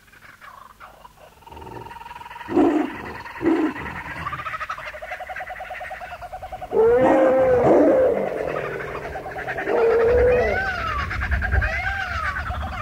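Recorded wild animal calls layered together: two loud low calls about two seconds in, then overlapping cries growing louder about halfway through, and repeated short rising-and-falling chirps near the end.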